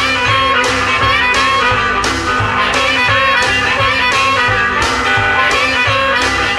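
Electric blues band recording: electric guitar with drums keeping a steady beat, the full band coming in at the start.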